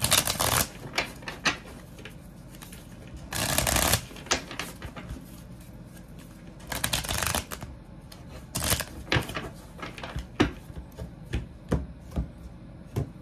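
A tarot deck shuffled by hand on a wooden table: three short bursts of rapid card clicks, near the start, at about three and a half seconds and at about seven seconds, with scattered single taps and slaps of cards in between.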